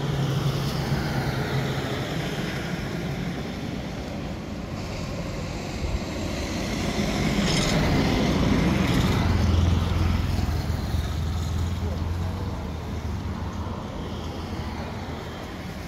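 Motor vehicle engines running on the road, a steady low hum that grows louder about halfway through as a vehicle comes by, then fades.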